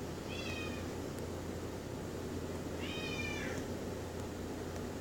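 A cat meowing twice: a short high call, then a longer one about three seconds in that slides downward at its end, over a steady low hum.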